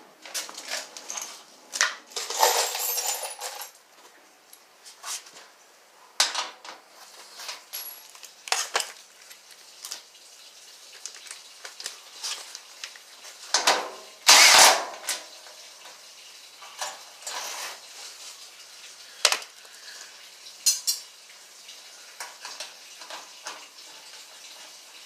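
Metal hand tools clinking and clattering in scattered knocks, with a longer rattle about two seconds in and the loudest clatter about fourteen seconds in.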